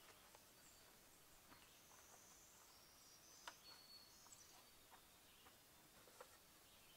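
Near silence: faint forest ambience with a few distant high bird chirps and some soft clicks and knocks.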